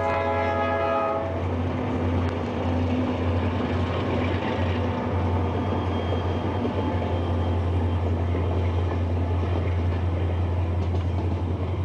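Diesel freight locomotives (EMD SD40 and GE C30 types) sounding their multi-tone air horn, which cuts off about a second in, then a steady rumble of the engines and the train rolling past.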